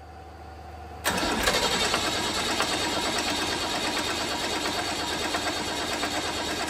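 Tractor puller's turbocharged diesel engine starting: a lower sound builds for the first second, then the engine comes in loud and suddenly about a second in and keeps running steadily until it cuts off at the end.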